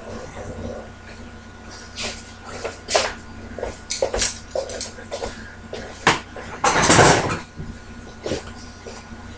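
A series of sharp knocks and clicks from objects being handled, with one longer, louder scraping clatter about seven seconds in.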